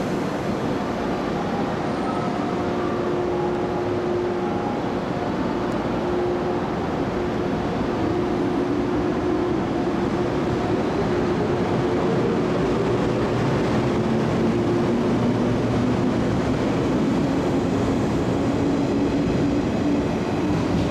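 JR West 415 series electric train pulling away and gathering speed, its traction motor whine slowly rising in pitch over the running noise of the wheels on the rails.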